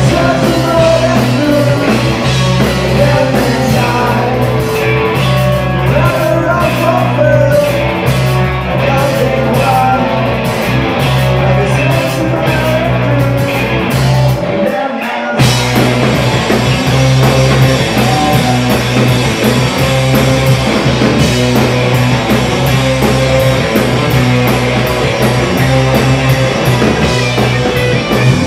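Live rock band playing loudly: distorted electric guitars and a drum kit over a steady bass, with a singing voice. The low end drops out briefly about halfway through.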